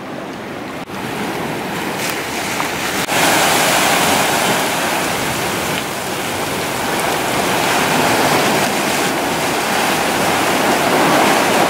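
Ocean surf breaking and churning against a rocky cliff and inlet: a loud, continuous rush of water that steps up in loudness about three seconds in.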